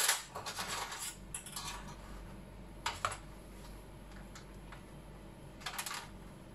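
Light clattering and tapping as LED backlight strips and test leads are handled on the TV's sheet-metal back panel, in three short bursts: the longest in the first second and a half, one about three seconds in, and one near the end.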